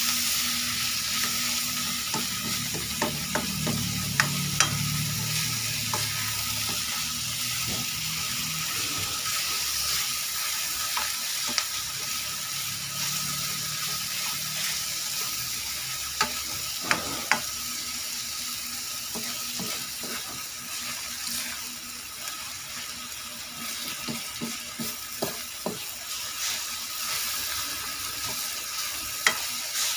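Chopped tomatoes, onion and garlic sizzling as they sauté in a metal pan, with a steady hiss and occasional clicks and scrapes of a plastic spoon stirring against the pan.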